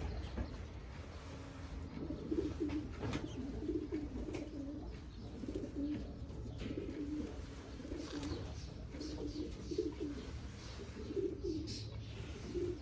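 Racing pigeons cooing over and over, low warbling coos following one another with hardly a break, with faint rustling and clicks among them.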